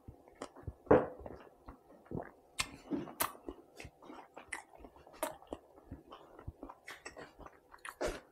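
A person chewing a mouthful of a bread sandwich with chorizo, cheese and chimichurri: irregular soft crunches of the bread and wet mouth clicks, the loudest about a second in.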